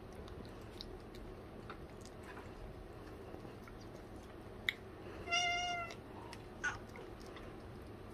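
A domestic cat meows once, a short call of steady pitch a little over five seconds in, with a few faint sharp clicks around it.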